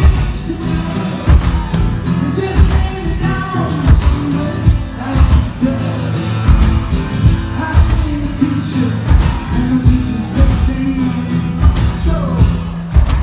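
Live acoustic rock band playing: acoustic guitar strummed, a cajon beaten and a tambourine shaken, with a man singing at the microphone.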